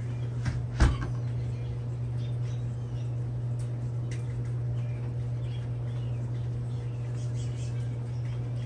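Steady low hum of the cold plunge tub's water pump running, with a single thump about a second in and faint bird chirps.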